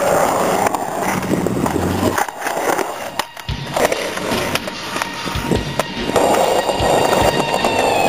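Skateboard wheels rolling over pavement, with several sharp knocks and clacks of the board. The rolling drops away briefly a little over two seconds in, then a series of low thumps follows.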